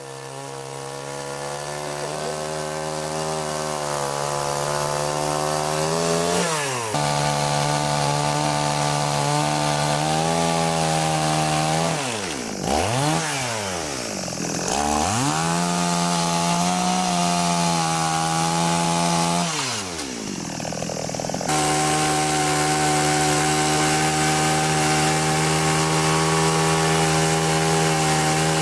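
Chainsaw engine running at high speed while carving wood. Its pitch drops sharply and climbs back several times: once about six seconds in, twice around the middle, and once about twenty seconds in. The sound fades in over the first few seconds.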